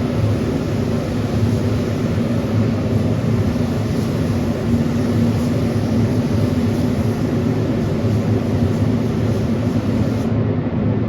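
A machine running steadily: a loud, unbroken low mechanical drone with a hum, no starts or stops.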